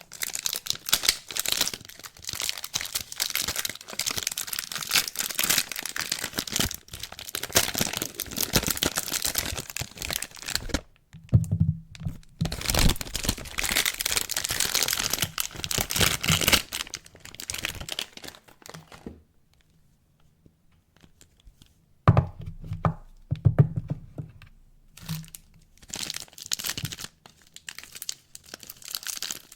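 Soap wrapping being crinkled and torn open by hand, in long stretches of dense crackling. It stops for a few seconds past the middle, then starts again with a sharp knock.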